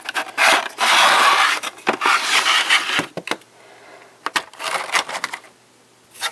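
Cardboard box and plastic packaging of a toy train 3-pack scraping and rustling as the contents are slid out and handled, in two long rough stretches with small clicks and taps between.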